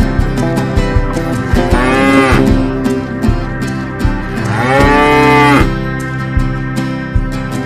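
A cow moos twice, each moo about a second long, rising and then falling in pitch, over background music with a steady beat.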